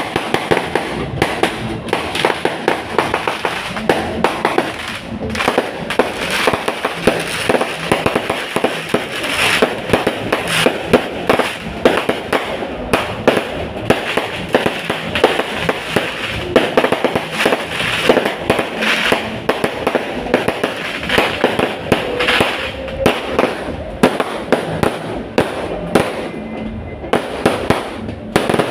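Fireworks going off without a break: a dense, rapid run of bangs and crackling pops, several a second.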